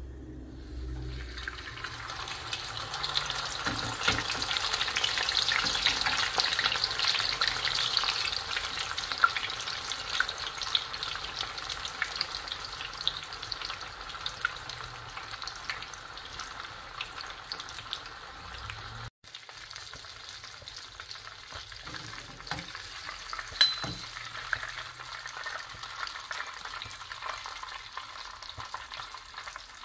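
Tofu-skin-wrapped pork and shrimp rolls sizzling in shallow oil in a frying pan on low heat. The sizzle starts about a second in as the roll goes into the oil and grows louder. It cuts out for an instant about two-thirds of the way through, then carries on more quietly, with a few sharp clicks of the turner against the pan.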